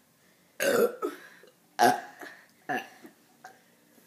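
A girl burping three times in quick succession, short loud belches about a second apart with a small one after, brought up by gulped carbonated soda.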